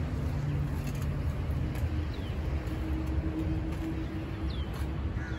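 Outdoor ambience: a steady low rumble of distant road traffic, with a faint hum for a couple of seconds in the middle and a few short, high, falling chirps.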